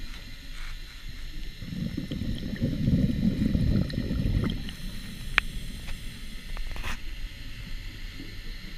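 Scuba diver's regulator exhaling, a low burst of bubbles about two seconds in that lasts about three seconds, heard through a GoPro underwater housing. Two sharp clicks come after it.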